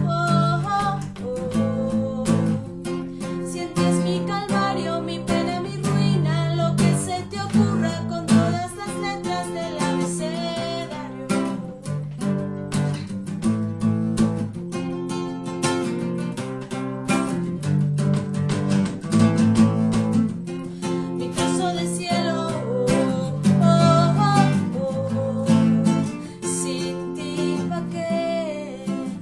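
Classical acoustic guitar strummed in a steady rhythm as song accompaniment, with a woman's voice singing over it.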